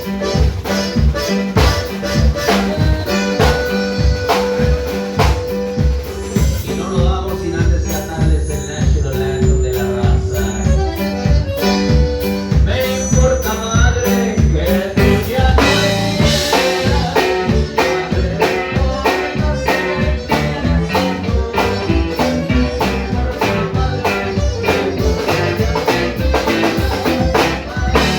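A regional Mexican band playing live, with a drum kit keeping a steady beat under sustained melody notes, mostly without singing.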